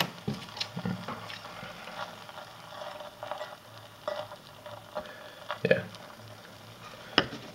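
Aluminium foil and can scraps reacting in sodium hydroxide solution: a soft fizzing of foam and hydrogen bubbles, with scattered small pops and clicks. The fizz is the hydrogen given off as the aluminium dissolves in the lye.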